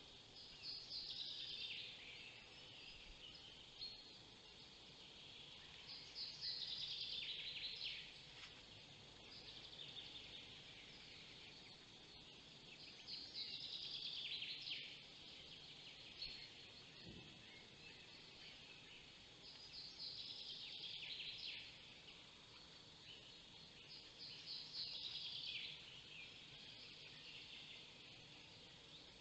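A songbird repeats a short song phrase that falls in pitch, about every six seconds. Fainter phrases can be heard between them, over a steady low background hiss.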